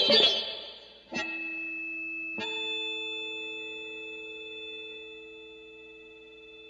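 Instrumental background music with guitar: a busy plucked passage dies away, then two held chords come in, about one and two and a half seconds in, ringing on and slowly fading.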